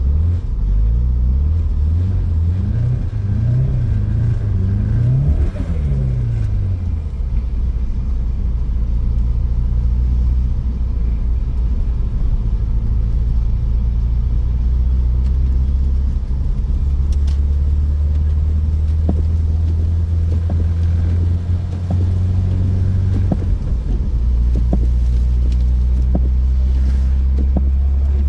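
BMW 320 touring's petrol turbo engine and drivetrain heard from inside the cabin while driving through snow. The revs rise and fall several times in the first few seconds, then settle into a steady low drone.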